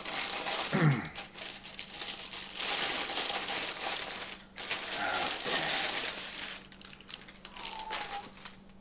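Packaging being handled: rustling and crinkling with small clicks and knocks, in stretches, plus one short falling sound about a second in.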